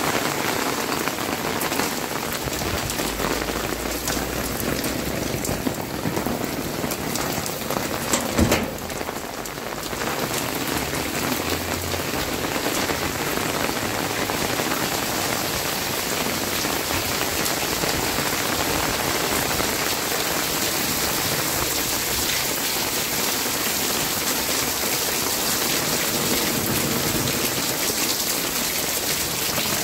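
Steady rain falling and hitting surfaces, with a brief sharp knock a little past eight seconds in.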